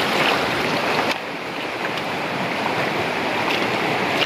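Muddy rain-season river rushing steadily over a rocky, shallow bed, a constant roar of moving water that drops a little in level about a second in.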